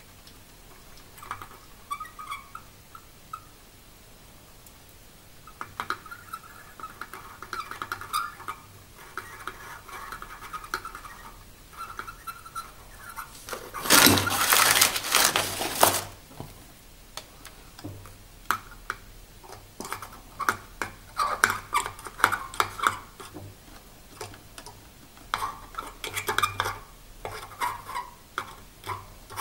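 Metal-on-metal scraping and light clinking as a soldering iron tip works on a metal pin head and pliers handle a wire, in short scratchy spells with scattered clicks. About halfway through comes a louder two-second rush of noise.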